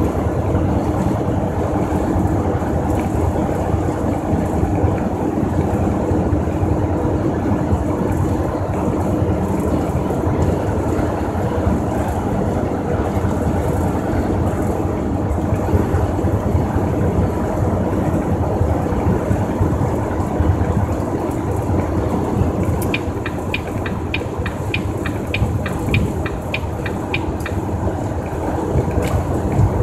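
Tractor-trailer cab interior while cruising on the highway: steady engine drone and road noise. A run of quick, evenly spaced ticks comes in for about five seconds near the end.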